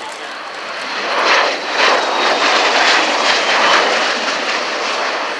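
Bell Boeing CV-22 Osprey tiltrotor passing low with its rotors tilted upward: its turboshaft engines and large proprotors make a loud rushing sound that swells about a second in and pulses with the blade beat. A faint high turbine whine slowly falls in pitch as it goes by.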